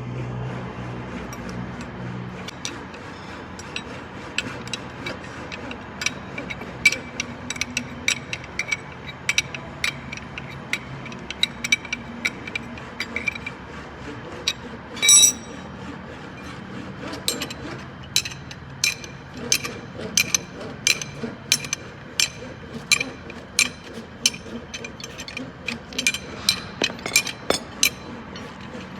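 Hand tools clicking and clinking against metal parts in irregular runs of light strikes, with one louder ringing metal strike about halfway through. A low hum stops about two seconds in.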